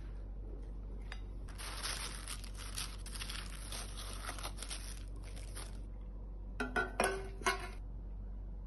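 Plastic cling wrap crinkling as it is stretched and pressed over a bowl for about four seconds. A few sharp, ringing clinks of metal cake pans follow near the end, over a steady low hum.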